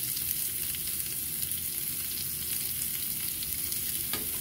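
Sliced green chile and white onion frying in a little oil in a skillet: a steady crackling sizzle, with a couple of light clicks near the end.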